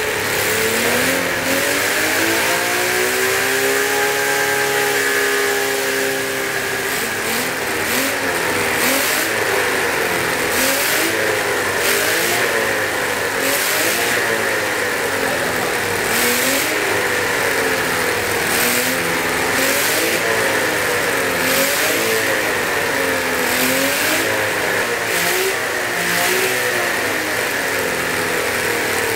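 Miniature air-cooled 87 cc V12 model engine running on methanol with 15% nitromethane, being revved. Its pitch climbs about a second in and holds high for a few seconds, then drops and swings up and down again and again, about once a second.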